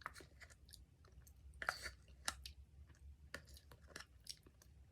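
Quiet close-up eating of Greek yogurt mixed with oatmeal: soft chewing, with small clicks of a spoon against the bowl.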